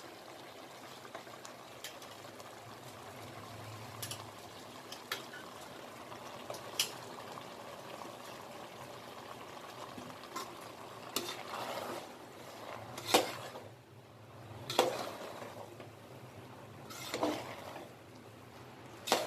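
Soaked rice tipped into a pressure cooker of simmering vegetable masala, with a steady bubbling underneath. Then a ladle stirs, scraping and knocking against the cooker; the knocks grow louder in the second half.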